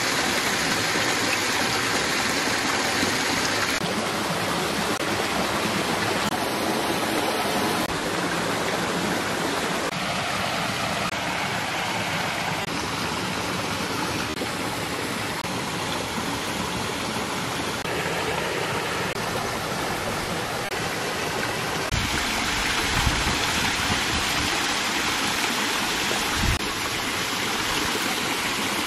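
A rocky stream's flowing water, a steady rushing noise that shifts in tone every few seconds, with a couple of brief low thumps in the second half.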